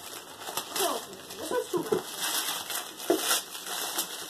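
Wrapping paper being torn and crumpled by hand as a gift is unwrapped, in irregular crinkling rips.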